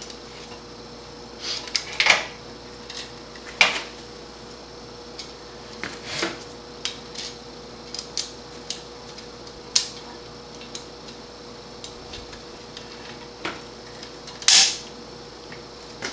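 Metal clicks and clinks of a valve spring compressor, valve springs, retainers and keepers being worked on a cast-iron Chrysler 383 cylinder head as the valves are installed. The clinks are scattered and irregular, the loudest about two seconds in and again near the end, over a faint steady hum.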